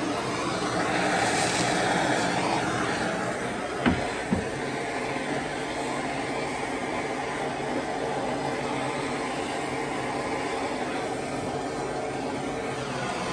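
Handheld gas blowtorch flame hissing steadily as it sears a beef roast in a cast-iron skillet, with two sharp knocks about four seconds in.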